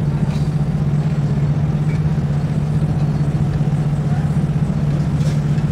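A steady low mechanical drone like an idling engine, holding the same level throughout.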